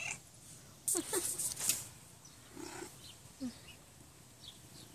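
A Siamese-type cat brushing against the phone: about a second in, close rustling and scraping of fur on the microphone for under a second, then two short, soft cat chirps.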